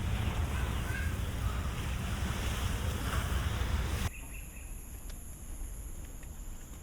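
Outdoor ambient noise with a heavy low rumble. About four seconds in it cuts off suddenly to a quieter ambience carrying steady high-pitched tones.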